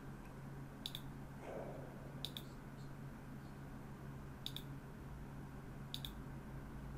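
Computer mouse button clicking four times, a second or two apart, each click a quick double tick of press and release.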